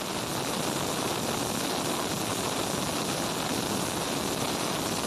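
Pressure cooker on a gas burner venting steam through its weighted whistle valve, a steady, loud hiss as it builds pressure toward its whistles.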